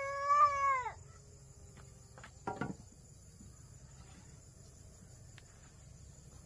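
The end of a rooster's crow: a held note that falls away and stops about a second in. A single dull knock follows a couple of seconds later.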